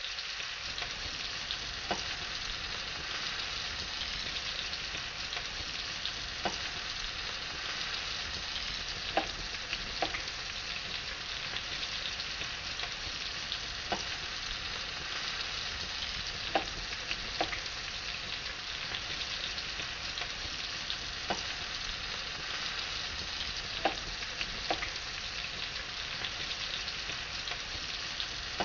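Food cooking on the stove: a steady sizzling hiss with a dozen or so sharp pops scattered through it.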